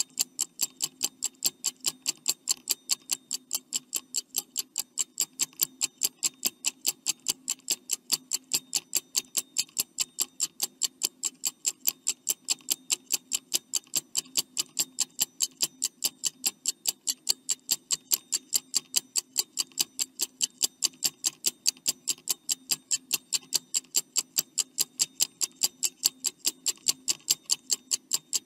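Clock-ticking sound effect for a quiz countdown timer: fast, even ticks, several a second, over a faint steady low hum.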